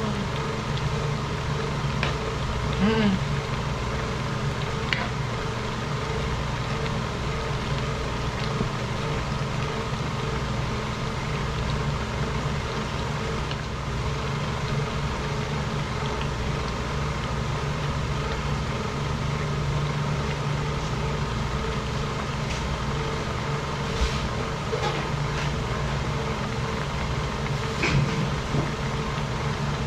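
Steady drone of running machinery, holding several constant tones, with a few light clicks and knocks scattered through it.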